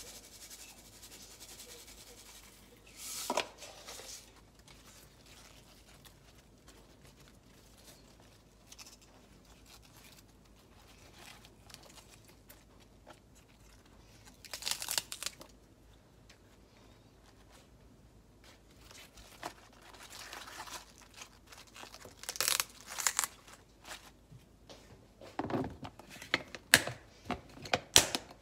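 Handling of napa cabbage leaves and kimchi in a plastic storage box: a few brief rustling, crinkling bursts, then a quick series of sharp plastic clicks near the end as the box's lid is pressed on and latched.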